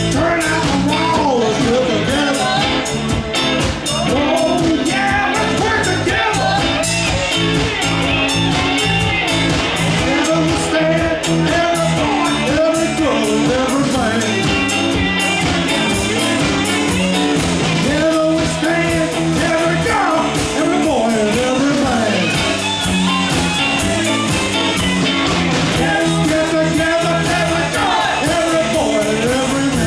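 Live rock band playing at full volume: electric guitars, electric bass and a drum kit keeping a steady beat, with a lead vocal.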